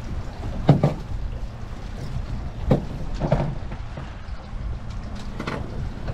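A small fishing boat on the water: a steady low rumble with wind, broken by about five sharp knocks, two close together just under a second in being the loudest.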